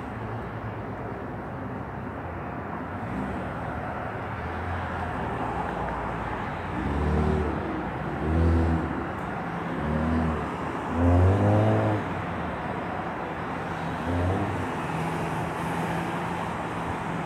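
Steady road traffic noise, broken midway by a run of about five short pitched sounds, each under a second long; the loudest comes about two-thirds of the way through.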